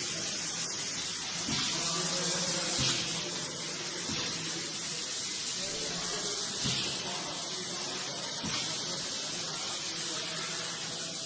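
Machine noise from the robot-and-CNC-mill cell: a steady hiss over a low hum, with a few sharp knocks.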